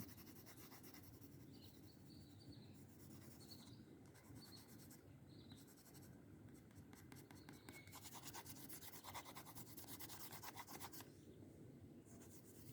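Faint rubbing and scratching of colour being worked onto paper by hand as an area of the drawing is coloured in. The strokes grow denser and a little louder from about seven to eleven seconds in.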